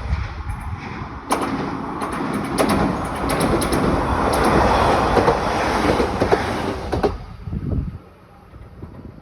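A train passing close by: rolling wheel noise that builds, is loudest about halfway through and drops off sharply about seven seconds in, with a rapid run of clicks from the wheels over the rails.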